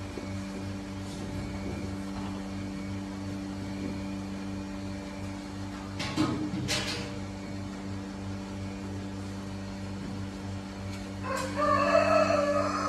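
Steady low hum with a few knocks about six seconds in, then near the end a loud, drawn-out animal call lasting about a second and a half.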